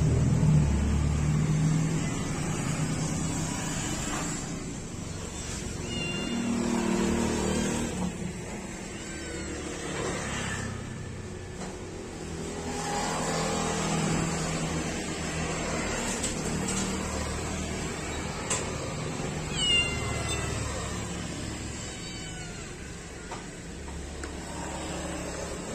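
Wet kittens meowing a few times after a bath, short high calls falling in pitch, over a steady low rumble.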